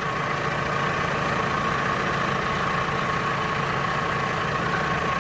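1998 Toyota Camry's engine idling steadily, with a steady whine over the running noise.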